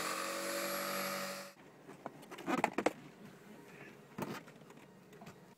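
Electric jigsaw running as it cuts fibreglass, for about a second and a half before it stops abruptly; then a few sharp knocks and clicks.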